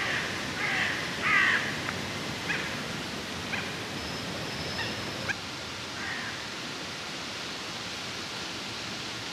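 Several short, harsh bird calls over a steady outdoor hiss, the loudest about a second and a half in, fading out by about two-thirds of the way through. A single sharp click comes a little past the middle.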